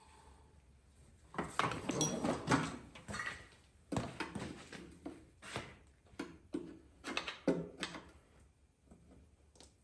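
Pry bar and intake manifold clanking and scraping against the block of a small-block Chevy 400 as the manifold is pried loose: a run of irregular metal knocks and rattles, dying away near the end.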